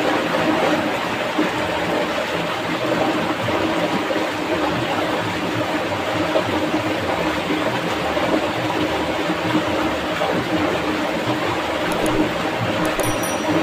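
Fast-flowing shallow stream rushing over rocks and small rapids: a steady, unbroken sound of running water.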